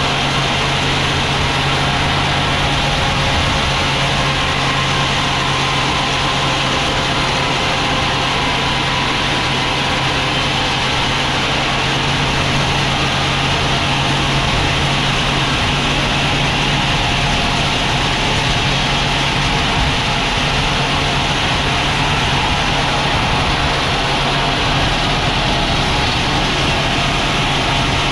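Sawmill machinery running at a steady, unchanging level, with a constant engine-like hum.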